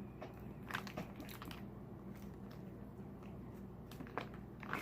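Faint crunches and clicks of king crab leg shell being handled and broken open, several in the first second and a half and another about four seconds in.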